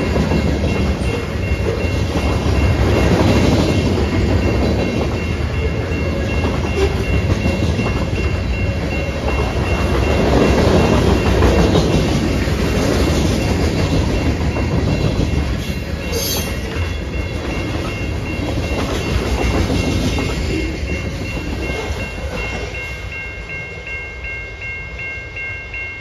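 Freight cars of a passing CN train rolling by, a dense rumble with wheel clatter on the rails that fades over the last few seconds as the train moves off. A steady, high electronic ringing, most likely the grade-crossing warning bell, runs underneath and pulses plainly near the end once the train noise drops.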